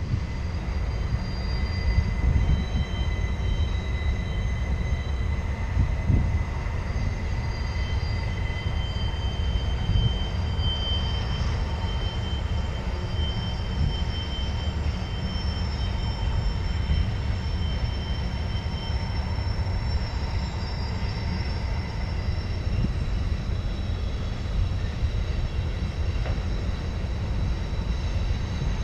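Norfolk Southern freight train rolling past with a heavy low rumble of wheels and cars, overlaid by several long, high-pitched wheel squeals that come and go: flanges grinding against the rails on a tight curve.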